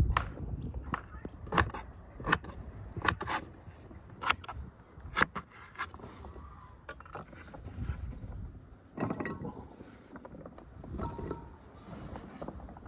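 Crinkle-cut knife chopping raw potatoes on a wooden cutting board, with sharp, irregular knocks of the blade on the board. Softer scraping comes later, as the cut pieces are pushed across the board.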